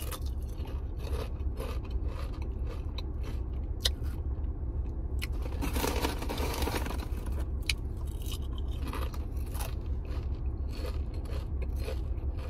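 Sun Chips being bitten and chewed, with crisp crunches scattered through. A steady low hum runs underneath.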